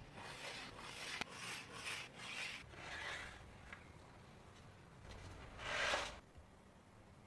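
Hand rubbing or rasping on a small part: about six short strokes, roughly two a second, then a pause and one longer, louder stroke near the end.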